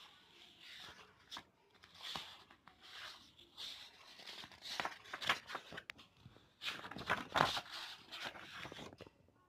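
Paper pages of a drawing notebook rustling and flapping as they are turned by hand: a string of irregular swishes and crinkles, the sharpest about halfway and three-quarters of the way through.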